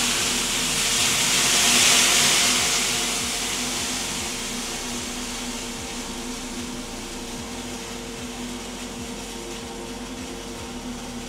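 Water thrown onto hot sauna heater stones hissing into löyly steam; the hiss swells over the first two seconds and then fades slowly. A steady hum from the mechanical exhaust vent fan runs underneath.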